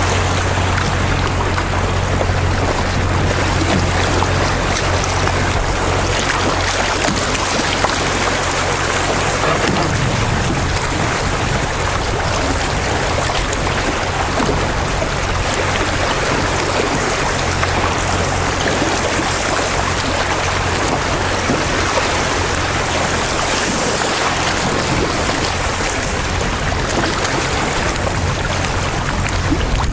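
Fast river current rushing and splashing around a canoe running through rapids: a steady, loud water rush.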